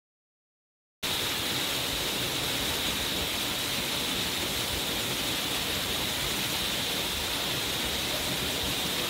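Steady rushing of a waterfall, cutting in suddenly about a second in.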